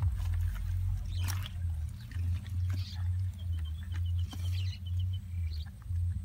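Wind rumbling on the microphone, with scattered rustles and clicks from hands working in a muddy crab hole and a plastic bucket of crabs. A short run of quick high chirps comes about three and a half seconds in.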